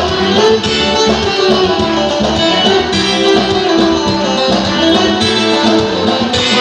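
Live band playing an instrumental passage of Turkish folk music, led by plucked bağlama (saz) with violin, keyboard and darbuka hand drum.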